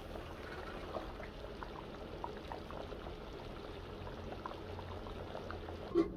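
Thick rice porridge (shuleh) bubbling at a full boil in an aluminium pot: many small pops and plops over a low hiss. A short thump comes near the end.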